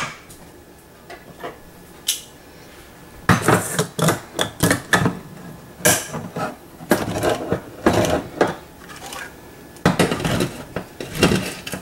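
Manual can opener being clamped onto a can of corn and cranked to open it: a string of irregular metal clicks and scrapes that starts about three seconds in, after a quieter opening with only a few faint clicks.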